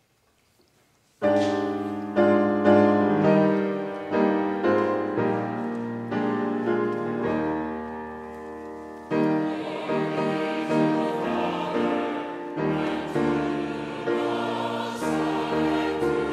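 Piano chords begin suddenly about a second in, each struck and then fading, and singing voices join the piano from about nine seconds in.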